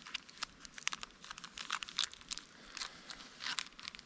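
A crunchy granola bar being bitten and chewed, with its wrapper crinkling: a run of short, irregular crackles.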